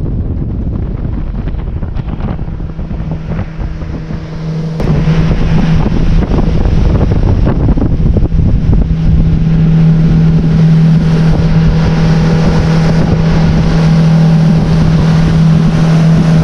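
Outboard motor driving a fishing boat at speed: a steady engine drone over wind on the microphone and water rushing in the wake. It gets louder about five seconds in.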